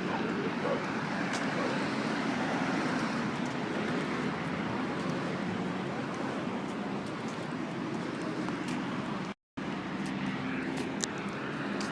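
Busy city street ambience: a steady wash of traffic with faint voices mixed in. It cuts out completely for a split second about nine and a half seconds in.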